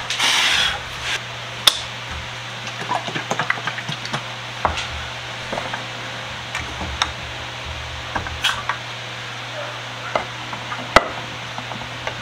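A short hiss in the first second, then scattered light clicks and taps of small objects being handled and set down on a workbench, the sharpest about 11 seconds in, over a steady low hum.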